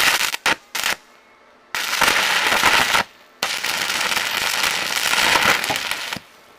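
Stick-welding arc on steel rebar: the electrode strikes with a few short crackling spurts, then the arc crackles steadily in two runs, one of just over a second and one of almost three, cutting off about six seconds in.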